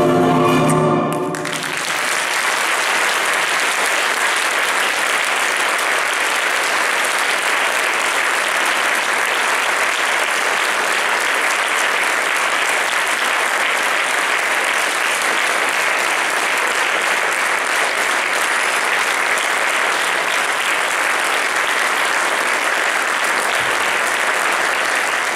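A ballet orchestra's closing chord ends about a second in, followed by steady audience applause.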